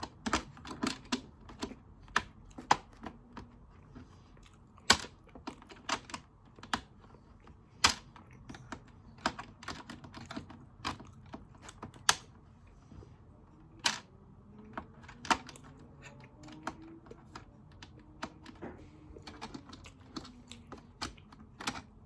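Irregular light taps and clicks, a few to several a second with uneven gaps, some much sharper than others, from hands at work playing an Operation-style game.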